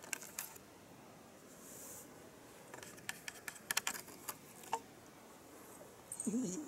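A small bell on a cat's collar jingling in light, scattered clicks as the cat moves, thickest around the middle. A brief low voice-like sound comes just before the end.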